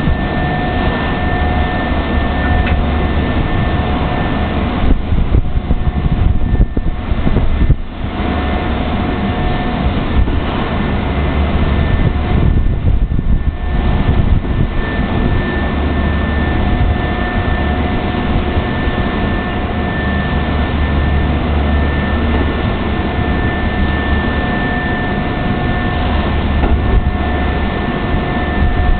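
Train cleaning machine running steadily: a loud, even rushing noise over a low hum, with two steady whining tones. The rushing thins out briefly twice, about a third of the way in and again near the middle.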